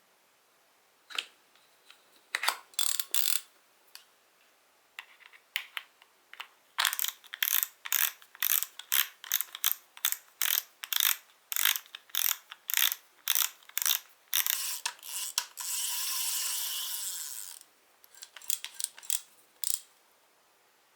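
Daiwa Regal spinning reel being worked by hand: its ratchet mechanism clicks in short bursts about two a second, then buzzes continuously for about two seconds, then clicks a few more times.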